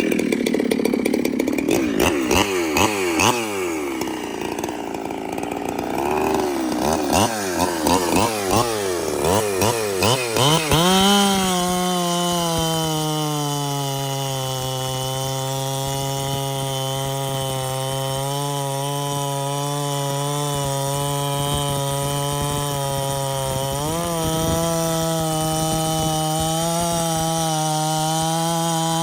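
Two-stroke chainsaw revved in a series of quick blips, then held at a steady high speed from about 11 seconds in, cutting into hardwood. The pitch rises slightly about 24 seconds in.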